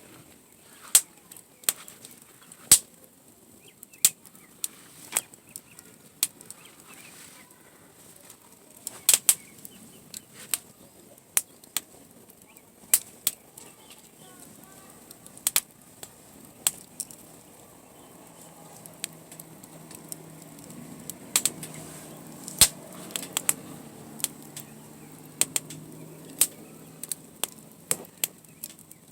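Wood campfire crackling, with irregular sharp pops and snaps, sometimes several in quick succession. A faint low drone comes in during the second half.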